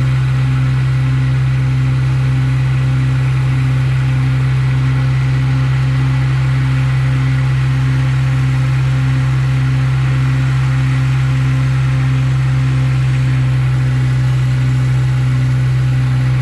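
A motor runs at a steady speed for the whole stretch: a loud, constant low hum with a faint pulsing overtone that beats about one and a half times a second.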